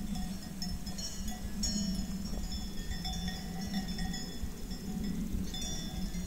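Bells on grazing cows clanking irregularly, several metallic tones at different pitches overlapping, over a steady low rumble.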